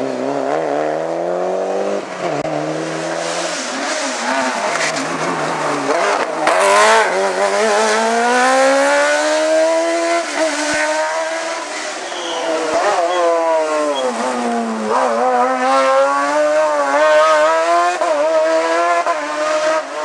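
Hillclimb race car engines revving hard, the pitch climbing and then dropping at each gear change, with tyre squeal. First a Mitsubishi Lancer Evolution rally car pulls away, then a sports prototype comes up the road. One sharp crack is heard about six and a half seconds in.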